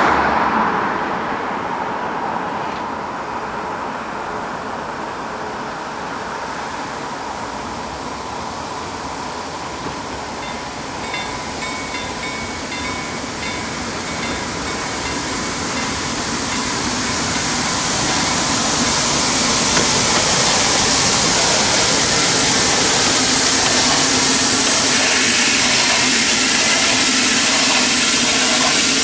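Level-crossing warning bells ringing as a steam locomotive approaches. A hiss of steam and running noise swells through the second half and becomes the loudest sound near the end.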